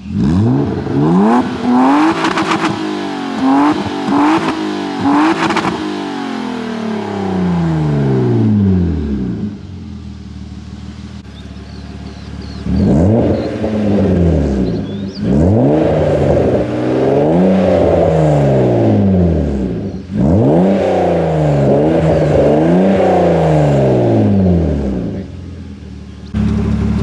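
BMW E36 325i's M50B25 2.5-litre straight-six revving through a stainless aftermarket rear exhaust section: a burst of quick blips with a few sharp cracks at their peaks, a drop back to idle, then a run of longer revs rising and falling.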